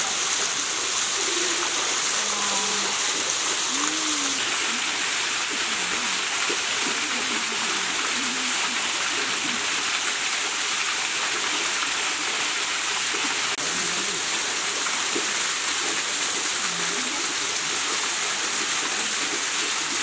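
Small waterfall pouring onto rocks and a pool: a steady rushing hiss of falling water that does not let up.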